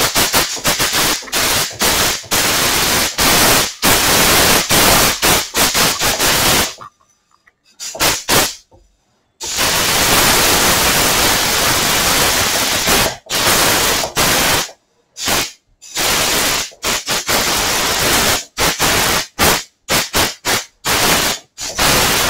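Compressed-air blow gun on a yellow air hose blasting dust off a wood carving, a loud hiss in many on-off bursts, some quick, some held for a few seconds.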